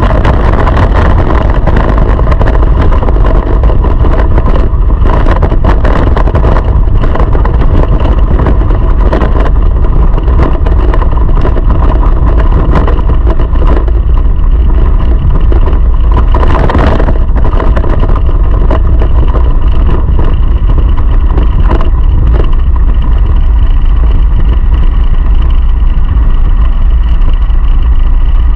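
Go-kart engine running hard at high revs, heard from the onboard camera: a loud, steady engine note over a heavy low rumble.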